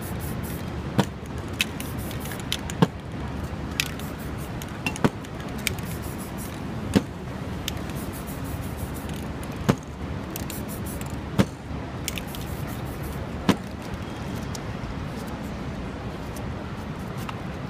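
City street background with a steady low traffic rumble, broken by irregular sharp knocks or clicks every one to three seconds as paint cans and tools are handled on the table.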